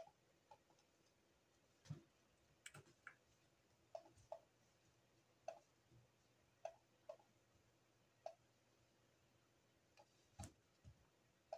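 Faint computer mouse button clicks, a dozen or so spaced irregularly, several in close press-and-release pairs, as lines are dragged out in a drawing program.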